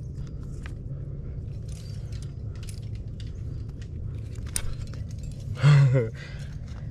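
Metal climbing gear clinking lightly on a harness rack, in scattered small clicks, with one short loud grunt about six seconds in.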